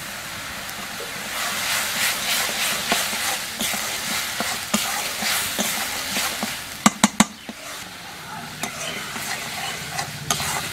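Flat metal spatula scraping and stirring thick onion-spice paste as it sizzles in a metal wok. The masala is being fried down (kashano) until its raw onion-garlic smell is gone. The stirring picks up about a second in, and a few sharp clicks come about seven seconds in.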